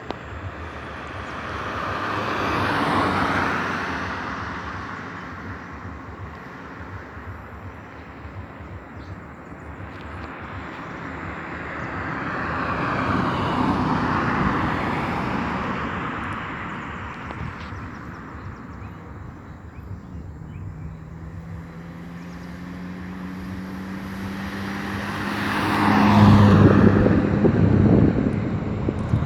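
Road vehicles passing one after another, three times, each swelling up and fading away. The last pass is the loudest, with an engine hum that rises in pitch as it approaches, about twenty-six seconds in.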